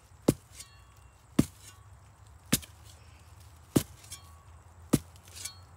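A hand tool chopping into tree roots: five sharp strikes, evenly spaced a little over a second apart.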